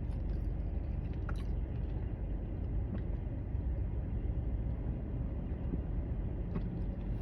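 Steady low rumble of a vehicle running, with a few faint clicks.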